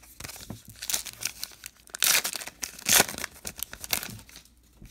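Wrapper of a 2019 Topps Allen & Ginter trading-card pack crinkling and tearing as it is ripped open by hand, with the loudest rips about two and three seconds in.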